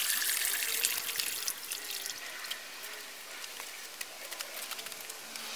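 Water trickling and dripping in a small garden pond, a steady hiss with many small ticks, easing off slightly.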